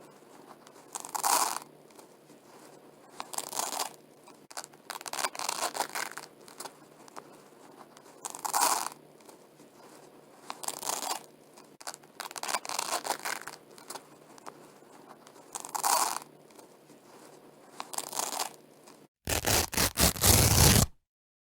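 Velcro strips being pulled apart by hand, a crackling rip about every two seconds, some short and some longer. Near the end comes one louder, fuller rip, followed by a moment of dead silence.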